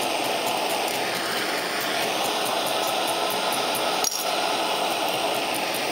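Gas hand torch flame hissing steadily, with a single sharp click about four seconds in.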